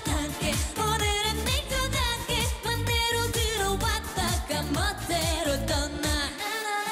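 Korean dance-pop song with a woman singing over a steady, bass-heavy beat. The bass drops out briefly near the end.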